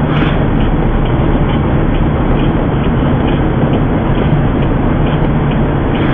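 Car cabin noise while driving at highway speed: a steady, loud rumble of engine and tyres on the road, with a faint light ticking about twice a second.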